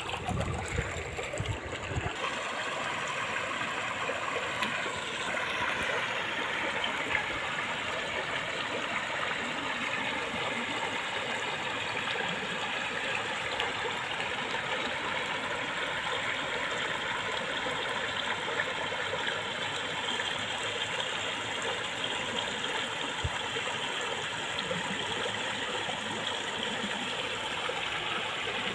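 Shallow stream running over rock ledges and small cascades: a steady rush of water. A low rumble on the microphone fills the first two seconds, then only the water remains.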